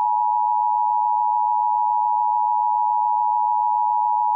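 Emergency Alert System attention signal: two steady tones sounding together as one continuous harsh alarm, the signal that announces an emergency broadcast message.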